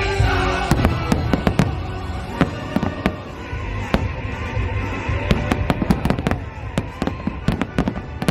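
Fireworks going off in rapid, irregular succession, many sharp bangs and crackles close together, with the show's music playing underneath.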